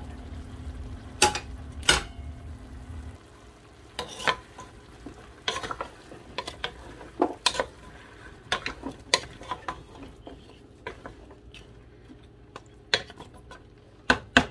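Potato and carrot pieces being added to a pot of frying chicken and stirred, the utensil knocking and scraping against the pot in irregular clicks over a faint sizzle. A low hum cuts off about three seconds in.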